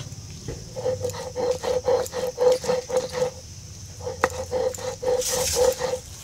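Stone roller rubbed back and forth on a sil grinding slab, grinding wet boiled raw mango with mint and basil leaves: a rhythmic stone-on-stone scraping at about three strokes a second, pausing briefly about halfway through.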